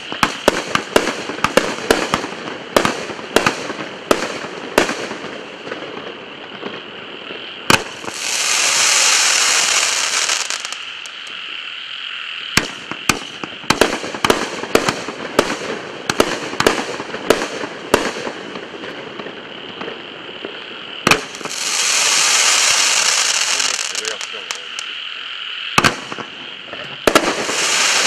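Starget Crazy Devil 28-shot fireworks cake firing: a rapid series of sharp launch reports and bursts. It is broken by three long stretches of dense crackling, about eight, twenty-one and twenty-seven seconds in.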